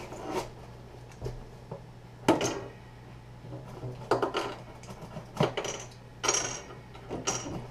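Plastic Lego bricks clicking and clattering on a wooden table as they are handled and pulled apart, mixed with scrapes and rustles of a cardboard box being opened. Irregular short clatters come every second or so, a few of them drawn out into brief scrapes.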